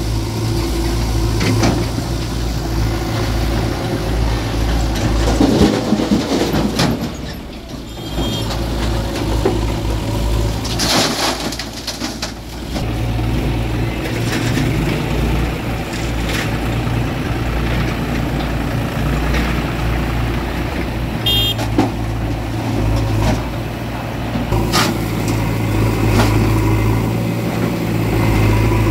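Diesel engines of a JCB 3DX backhoe loader and a John Deere tractor running steadily, with a few brief clattering bursts as earth and rock are tipped from the loader's bucket into the tractor's trolley.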